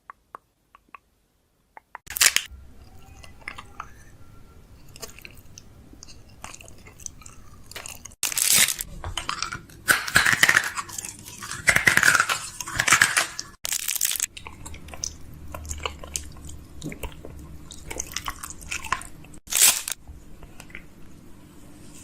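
Close-miked biting and chewing of a crunchy snack. Loud crunches come in a cluster in the middle and once more near the end, over quieter chewing.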